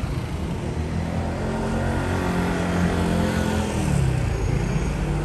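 A car driving past close by on a town street: a steady engine note and tyre hiss grow louder, and the engine note falls in pitch about four seconds in as the car goes by.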